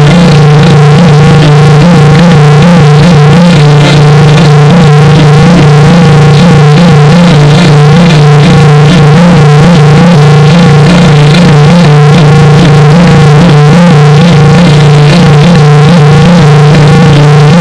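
Distorted synthesizer sound effect played very loud, near clipping, in the style of a 'G Major' meme edit: a steady low drone with wavering, warbling higher tones over it.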